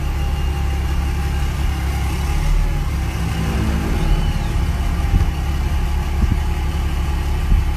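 Crane truck's engine running steadily at idle.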